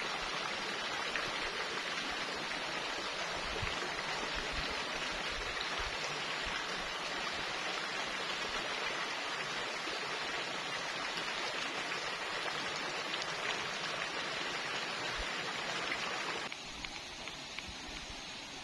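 Steady rushing noise of water, like rain or a stream. Near the end it cuts off suddenly to a quieter background with a few faint ticks.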